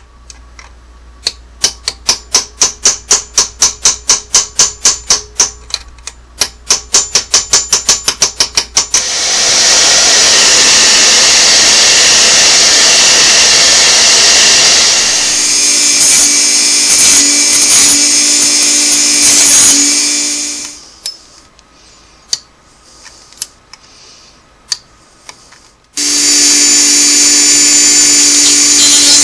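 Rapid sharp knocks, about three a second for several seconds, from work on a seized, over-tightened screw on a Singer 301A. A hair dryer then blows steadily, heating the screw to free it. Later a small handheld rotary tool runs with a steady hum, stops for a few seconds, and starts again near the end.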